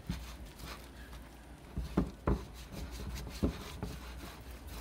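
Hands kneading and squishing a wet, sticky sourdough dough in a bowl: soft rubbing and squelching, with a few irregular knocks.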